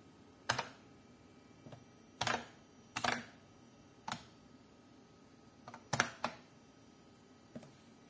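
IBM Model M keyboard's buckling-spring keys struck one at a time: about nine loud, sharp clacks at irregular intervals, some in quick pairs, with pauses of a second or more between them.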